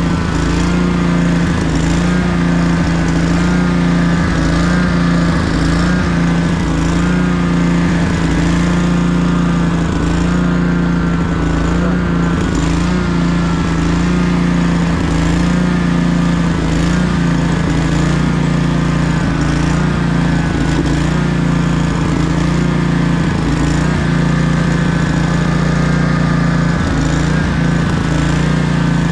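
Commercial walk-behind lawn mower's engine running steadily with an even, constant drone while the mower is pushed along.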